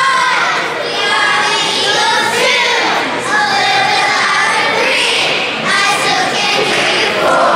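Several voices singing together in held, high-pitched notes.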